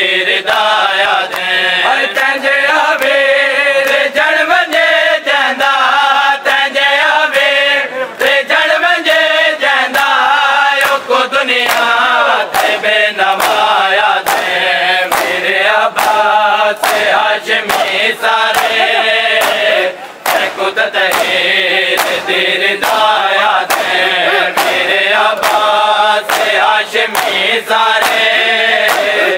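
Men chanting a noha (Shia mourning lament) together, over a steady rhythm of sharp slaps from a crowd beating their chests in matam. The chanting breaks off briefly about two-thirds of the way through.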